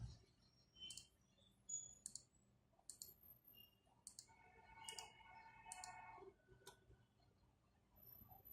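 Faint, sharp clicks at irregular intervals, roughly one a second, like a computer mouse being clicked, with a short tone about halfway through.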